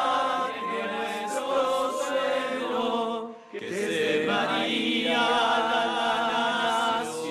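A group of men's voices singing a hymn in long, held notes with vibrato. There is a short break about three and a half seconds in before the next phrase.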